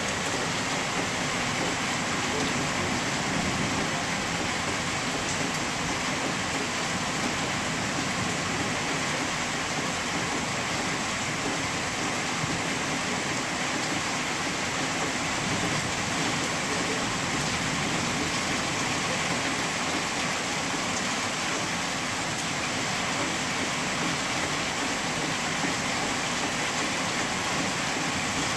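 Heavy rain pouring steadily, a dense, even hiss with no breaks.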